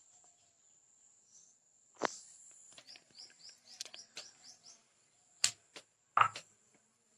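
A few sharp knocks, with a quick run of about seven short falling chirps between them, over a steady high-pitched whine.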